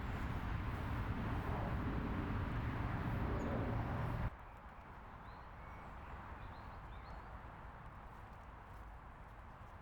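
Outdoor ambience with a few short, faint bird chirps. A louder, low rumbling noise fills the first four seconds, then cuts off abruptly to a quieter background.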